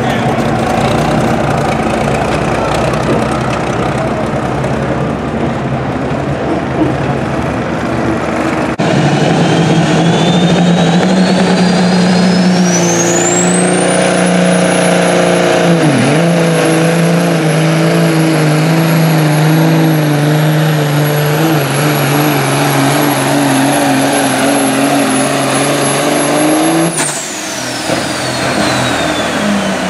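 Diesel semi truck pulling under full throttle: the engine drones steadily while a turbocharger whistle rises in pitch over about five seconds and holds high for roughly thirteen seconds. Near the end the whistle falls away as the throttle comes off at the end of the pull.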